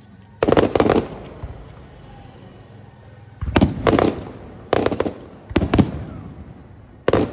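Aerial fireworks shells bursting overhead in five clusters of sharp bangs, each bang trailing off in a short echo.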